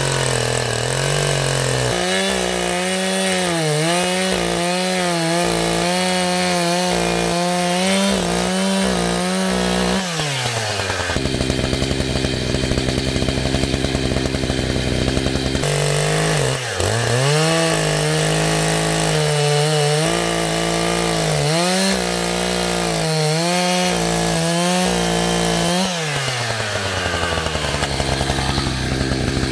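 Husqvarna 572XP chainsaw fitted with Oregon RD ripping chain, making a freehand rip cut along the grain of a log. The engine runs up to full throttle about two seconds in and its pitch wavers as the chain bites, then drops back near the ten-second mark. It runs up again for a second cut and eases off a few seconds before the end.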